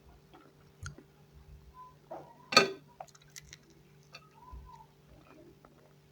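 Chewing and small mouth and eating noises, with one loud sharp knock about two and a half seconds in. A steady low hum runs underneath.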